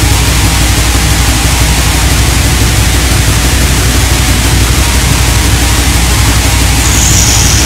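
Raw, lo-fi black metal recording: a dense, hissy wall of distorted sound over a steady low drone, at an even loudness. A high thin tone comes in near the end.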